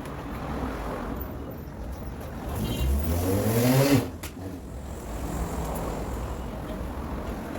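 A motor revving up for about a second, its pitch rising, then cutting off suddenly, over a steady low rumble.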